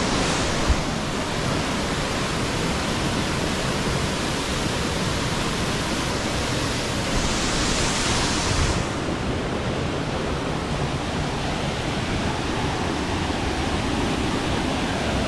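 Steady rushing of a waterfall and the stream below it, an even hiss that grows brighter for about two seconds near the middle. A single short knock about a second in.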